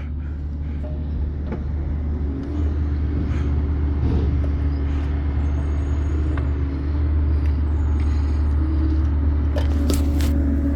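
A steady low engine rumble with a constant hum, growing slightly louder about two seconds in; a few short clicks near the end.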